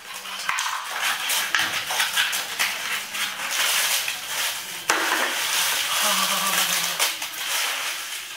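Thin plastic water bottle crinkling and crackling as rolled paper banknotes are pulled out through a cut in its side, the notes rustling against the plastic. A sharp click about five seconds in.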